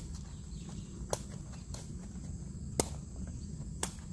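A sepak takraw ball being kicked back and forth between players: a sharp smack about once a second, four or five in all, one of them fainter.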